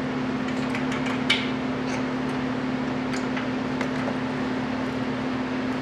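A shop heater fan running with a steady hum, with a few light clicks and one sharper click about a second and a half in.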